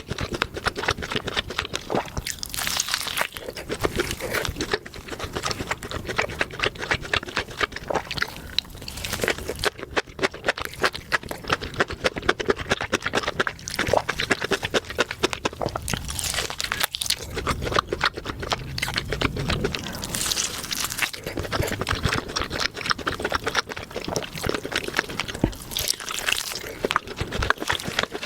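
Close-miked steak sounds: a dense, continuous run of rapid crackling and crunching, rising in swells every few seconds.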